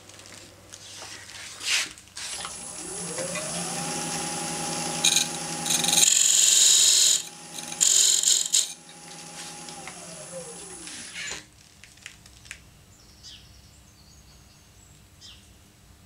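Axminster AT1628VS variable-speed woodturning lathe switched on, its motor whine rising as it spins up and then holding steady. A parting tool cuts into the spinning spalted beech twice with a loud hiss, and the motor then winds down and stops about eleven seconds in.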